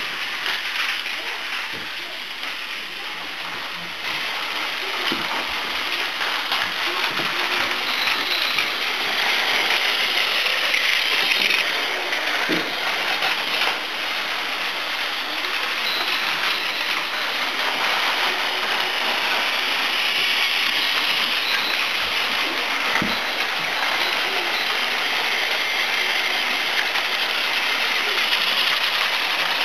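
Several battery-powered Plarail toy trains running on blue plastic track: a steady whirring rattle of their small motors and gears and wheels on the track, with a few knocks scattered through it.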